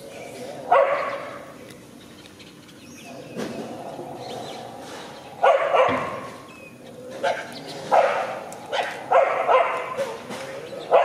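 Short, loud yelping animal calls: one alone near the start, then a run of them about a second apart in the second half.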